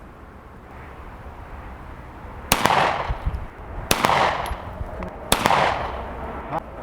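Ruger P-94 pistol firing at a target about 50 yards off: three sharp shots roughly a second and a half apart starting about two and a half seconds in, and a fourth at the very end, each trailing off in an echo.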